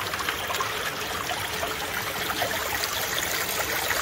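Shallow creek water running and trickling steadily.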